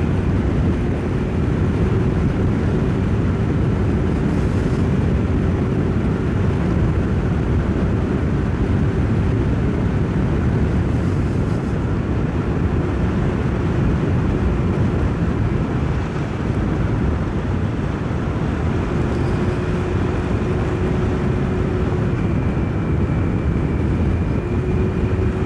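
A motorcycle riding along at a steady pace, heard through a helmet-mounted microphone: a continuous heavy rumble of wind and road noise with the engine's steady drone underneath.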